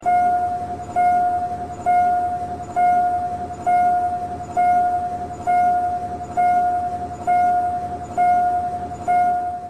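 Level-crossing warning bell of a Thai-style railway crossing signal, dinging steadily about once a second; each ding rings out and fades before the next.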